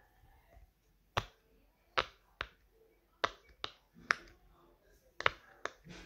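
Bubbles of a silicone push-pop fidget toy being pressed through one at a time: about ten sharp pops at uneven spacing, several coming in quick pairs.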